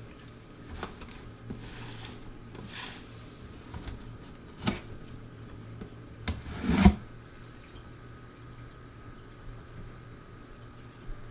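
Cardboard box and packing peanuts being handled and rustled while a box is unpacked, with a sharp knock nearly five seconds in and a louder thump near seven seconds.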